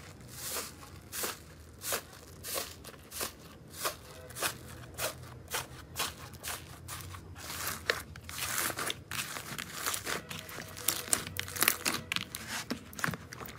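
Fingers pressing into a crusty blue slime topped with foam beads, each press a short crisp crunch roughly every half second. From about eight seconds in the crunching turns denser and louder, a run of crackles as the crust is broken up and the slime kneaded.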